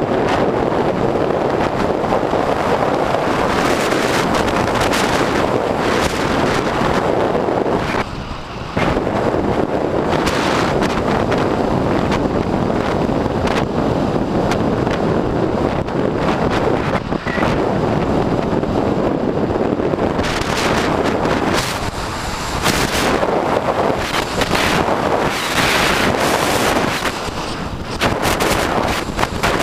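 Heavy wind buffeting the microphone of a camera riding on a fast-moving electric bike, a loud, even rumble and hiss with a few brief lulls.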